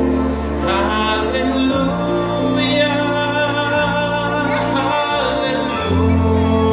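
Live band music with a male singer on microphone, accompanied by electric bass and drums; the held bass notes change every couple of seconds.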